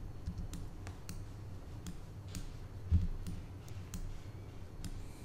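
Light, irregular clicking of a computer mouse and keyboard, a click every second or so, with one duller thump about three seconds in.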